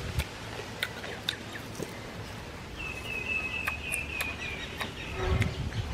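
A high, rapid trill from a calling animal, lasting about two seconds in the middle, over scattered crunchy clicks of chewing. Low thumps come near the end.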